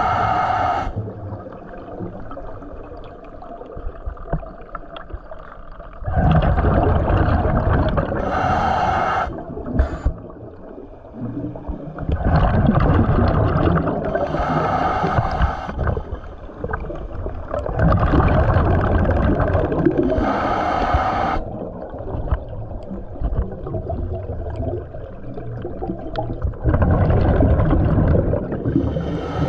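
Scuba diver breathing through a regulator underwater. Each breath out is a long rumble of exhaust bubbles and each breath in a shorter hiss, repeating about every six seconds.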